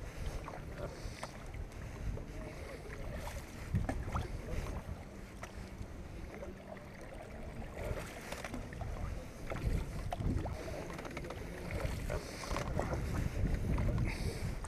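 Wind noise on the microphone of a camera mounted in an open canoe, with water splashing and light knocks from paddle strokes against the hull.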